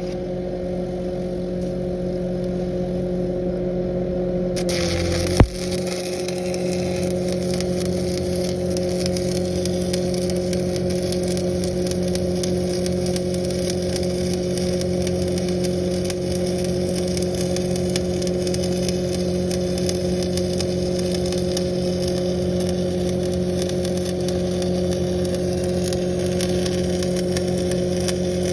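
Lincoln Frontier 400X engine-driven welder running steadily. About four and a half seconds in, a steady hiss of a 7018 stick-welding arc starts, with a sharp click just after, and the engine note changes as the machine takes the welding load. The arc and the engine run on steadily after that.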